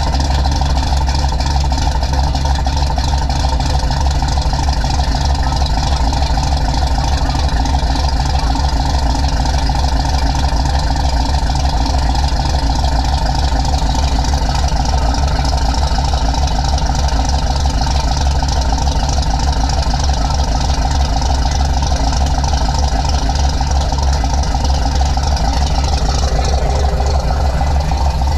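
A classic V8-era car's engine idling steadily and loudly through a freshly built custom exhaust, a deep, even rumble.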